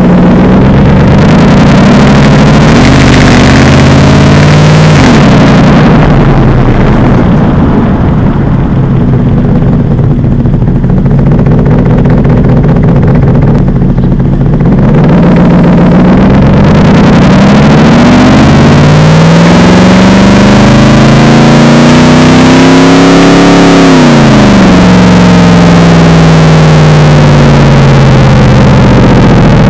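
Mercedes-Benz SLR McLaren's supercharged 5.4-litre V8 running through an OFK "Devil Sports" aftermarket exhaust. The engine note holds fairly steady and softens for a stretch. Past the middle it climbs slowly for several seconds, drops sharply, and settles into a steady note.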